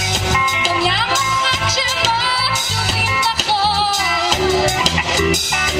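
Live rock band with electric guitar, bass guitar and drum kit playing through a PA, with a melodic lead line that slides and wavers in pitch over a steady beat.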